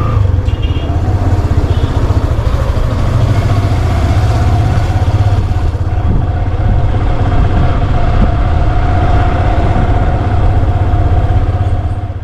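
A vehicle engine running steadily while moving: a loud, continuous low hum with a steady higher whine above it.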